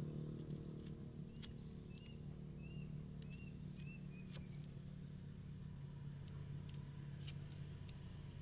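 Scattered sharp clicks of a small blade working the bark of a tamarind bonsai trunk, with a short run of faint high chirps about two to four seconds in, over a steady low hum.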